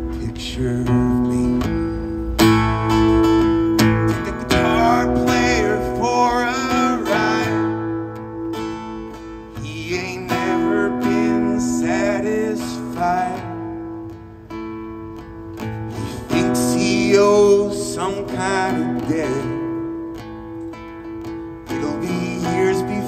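Live band music: an acoustic guitar strummed in chords, with a voice singing over it in several phrases.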